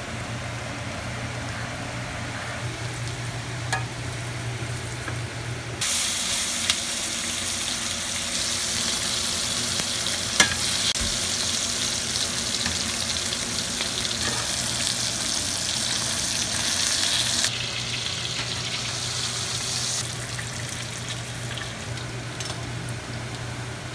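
Garlic butter sizzling and foaming in a frying pan while it is stirred with a spoon. About six seconds in, the sizzle jumps to a louder, brighter hiss as a steak is basted in the butter, then drops back near the end. A few sharp clicks cut through it.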